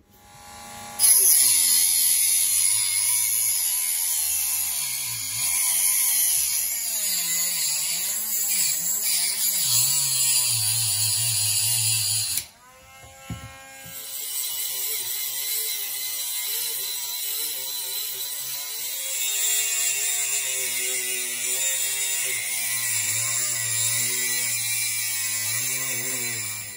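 Handheld rotary tool cutting through M4 threaded bar: a high-speed motor whine that wavers in pitch under load, over a harsh grinding hiss of the disc on the metal. It stops briefly about halfway through, then starts cutting again.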